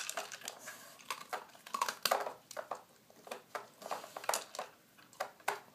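Blue plastic Nina Ottosson dog puzzle knocking and clicking as a dog noses and mouths at its sliding drawers, in irregular taps and clatters.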